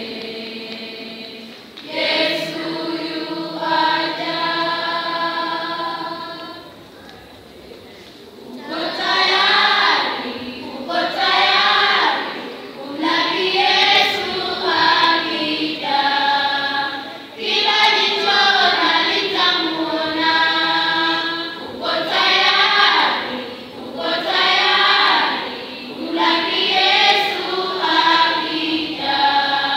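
Youth choir singing unaccompanied in harmony: long held chords at first, a quieter moment about seven seconds in, then faster rhythmic phrases.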